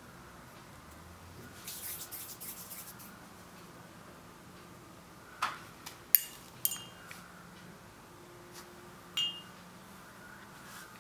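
Soft rubbing of fingers rolling a small ball of fondant, about two seconds in, then a handful of sharp little clicks, some with a brief ring, the loudest about six seconds in.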